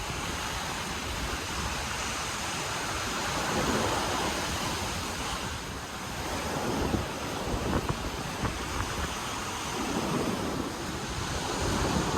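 Ocean surf breaking and washing up the beach, swelling in loudness a couple of times, with wind buffeting the microphone.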